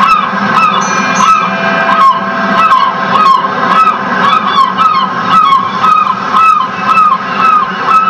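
A flock of birds honking over and over, about two calls a second, played as a recorded sound effect through the pirate ship's speakers over a steady low background.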